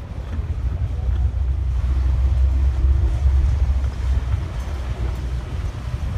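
Wind buffeting the camera microphone: a loud low rumble without any clear pitch, swelling to its strongest about midway.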